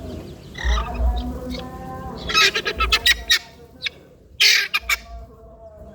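A bird squawking: a short call near the start, then a run of harsh squawks about two and a half seconds in, and one more about a second later.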